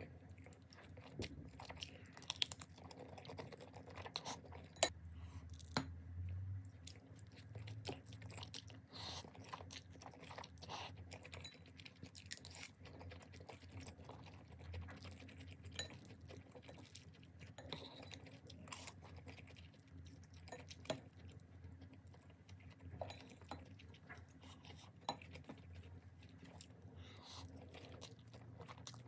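Eating Buldak spicy stir-fried noodles with mayo corn: a metal spoon and chopsticks clink and scrape against a ceramic bowl, mixed with chewing. Scattered sharp clinks, the loudest about five seconds in, over a faint steady hum.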